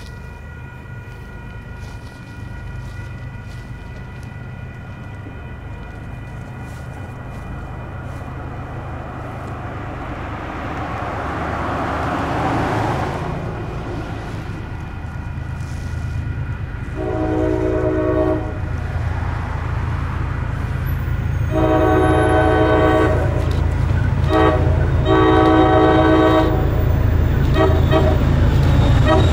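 Approaching diesel freight locomotive sounding its air horn in the long, long, short, long grade-crossing pattern, over a low engine rumble that grows louder as it nears. A rushing sound swells and fades about midway, before the first horn blast.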